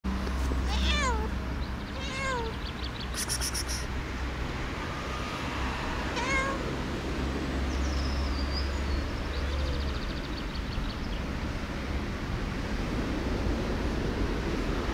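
Tabby cat meowing: three short calls, each falling in pitch, about one, two and six seconds in, over a steady low background rumble.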